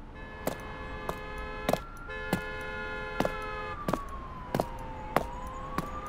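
Sound-designed footsteps, boot steps on concrete pitched up to sound like heels, walking at a steady pace of a little under two steps a second. Under them runs a busy city-street ambience with a siren slowly gliding up and down.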